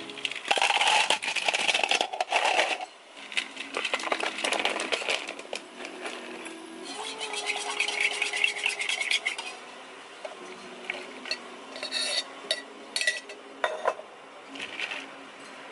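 Ice cubes tipped from a metal scoop into a plastic cup: a dense clatter lasting about two seconds, then scattered clinks of ice and handling on the counter.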